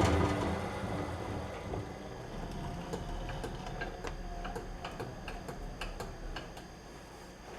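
Metal lathe running down after a boring pass: its running noise fades over the first couple of seconds, then scattered light ticks and clicks follow as it coasts to a stop.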